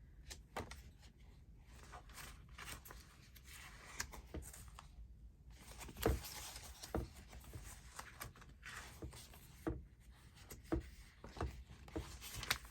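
Sheets of paper being leafed through and shuffled, rustling, with scattered light taps and knocks as they are handled, one sharper knock about halfway through.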